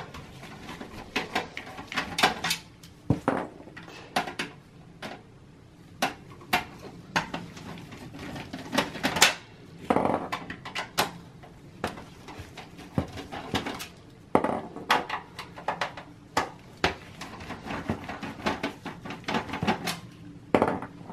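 Phillips screwdriver backing out the power-supply screws from the steel chassis of a Dell Precision T5500: irregular metallic clicks and scrapes of the bit in the screw heads, with louder clinks as the small steel screws come free and are set down.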